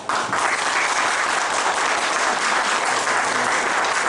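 Audience applauding, starting suddenly and keeping up steadily.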